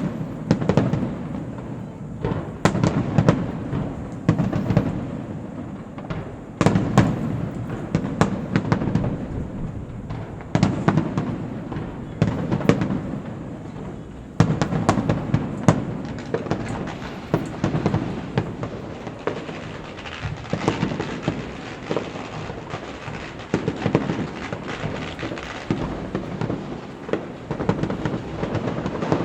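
Fireworks display: aerial shells bursting one after another, sharp bangs with rumbling, smeared tails and crackling, coming in volleys every one to four seconds.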